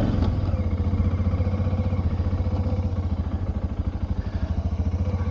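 2000 BMW F650GS Dakar's single-cylinder engine running at low revs with a steady, evenly pulsing beat, the motorcycle barely moving or stopped.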